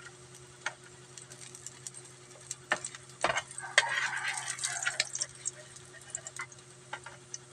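Metal slotted spatula clinking and scraping against a nonstick frying pan as pieces of fried fish are lifted out. There are a few separate clinks, the loudest about three seconds in, and a busier stretch of scraping and clinking just after it.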